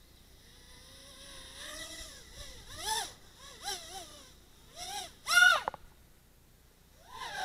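Micro quadcopter's 1103 brushless motors spinning up into a faint whine, then revving in four short throttle punches, each a whine that rises and falls in pitch. The loudest punch comes about five and a half seconds in.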